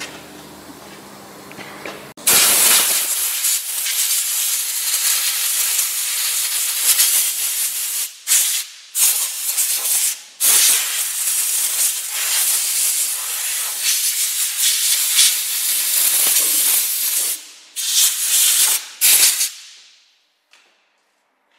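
Compressed-air blow gun hissing, blowing dust out of a rear disc brake caliper and pad seats. It starts about two seconds in, runs steadily with a few brief cut-outs, and ends in several short blasts.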